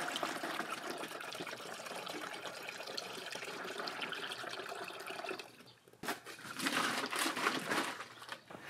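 Liquid for a 50-50 antifreeze and distilled water coolant mix being poured into a container. A steady pour stops about five and a half seconds in, and a second, shorter pour follows.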